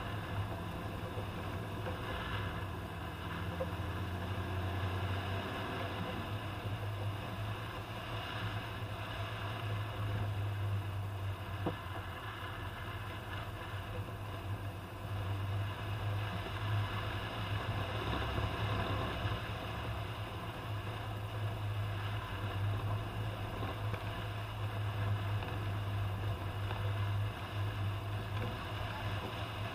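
Toyota Land Cruiser on the move, its engine drone and road noise running steadily, with small swells in level.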